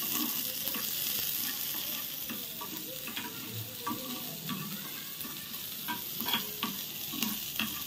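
Chopped onions sizzling in oil in a frying pan as they are sautéed toward soft and light pink. A plastic spatula stirs them, with scattered light taps and scrapes against the pan.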